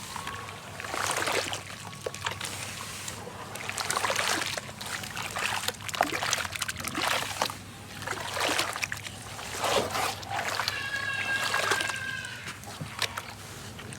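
Golden sand crumbling and splashing into water in repeated surges, with gritty crackles and trickling. A short high-pitched tone sounds about eleven seconds in.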